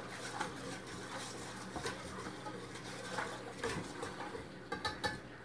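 Wire whisk stirring a baking soda and peroxide solution in a stainless steel bowl, making irregular light clicks and scrapes against the metal, with a quick run of clicks near the end. A faint steady low hum runs underneath.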